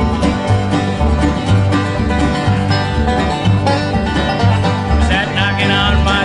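Acoustic bluegrass band playing an upbeat tune: rolling banjo and strummed guitar over steady alternating bass notes. A higher wavering melody line comes in near the end.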